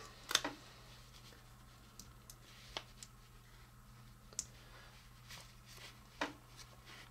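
Small plastic transforming toy figure being handled and turned by fingers: a few faint, scattered plastic clicks as its parts are moved, the sharpest just after the start. A steady low hum sits underneath.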